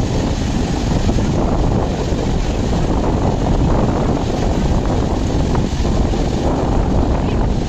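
Steady, loud rushing of Patalpani waterfall in monsoon spate, with wind buffeting the microphone.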